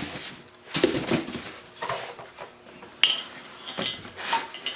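Metal parts of an oil cooler kit being handled and set down: a few sharp clinks and knocks, one near the three-second mark with a short metallic ring, between lighter rustling.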